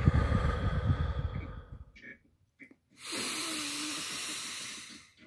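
A man breathing forcefully as part of a deep-breathing exercise meant to make him lightheaded: a heavy breath about a second and a half long, then after a pause a steady hiss of breath for about two seconds.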